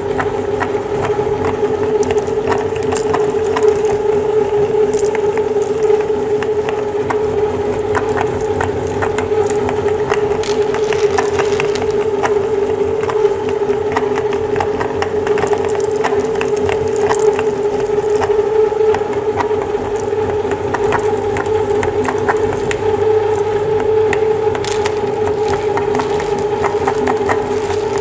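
Motor-driven cast-metal meat grinder running steadily with a constant hum, its auger turning, while frequent small crackles and crunches come from leftover bits being crushed in the barrel.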